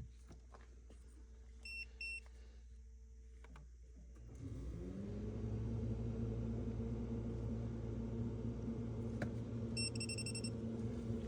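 Two short electronic beeps, typical of a non-contact voltage tester being switched on, then a motor starts up, its hum rising in pitch for about a second before settling into a steady drone; a longer beep sounds near the end.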